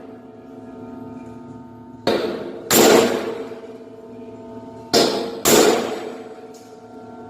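Hammer striking steel in pairs of blows about half a second apart, twice (about 2 s and 5 s in), with a lingering metallic ringing between the blows.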